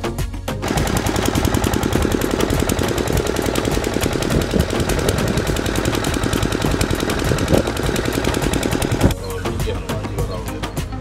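Engine-driven irrigation water pump running with a rapid, even chugging over background music; it cuts off about nine seconds in.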